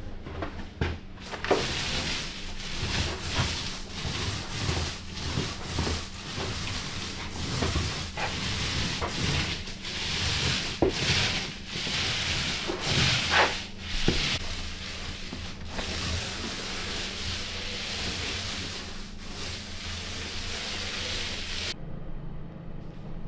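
Paint roller rolling paint onto drywall: repeated rasping strokes over a steady low hum, stopping suddenly near the end.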